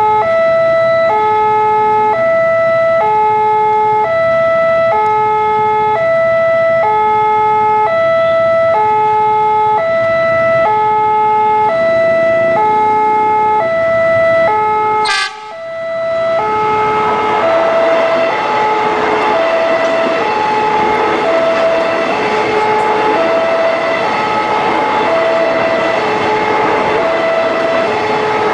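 Railway level-crossing warning alarm sounding a steady two-tone high-low chime, about one cycle a second. There is a sharp knock about halfway through. After it, the noise of a KRL KFW electric multiple unit passing close by rises under the alarm.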